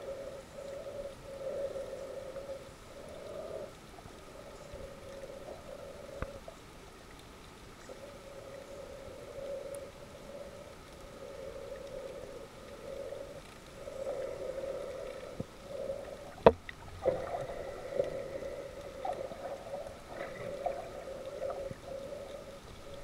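Muffled underwater sound picked up with the camera submerged: a wavering midrange hum over a dull wash. There is one sharp knock about sixteen and a half seconds in.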